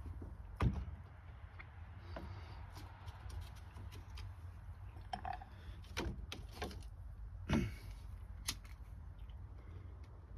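Scattered knocks and clicks of small objects being handled, about ten over the stretch, the loudest about a second in and again near 7.5 seconds, over a steady low hum.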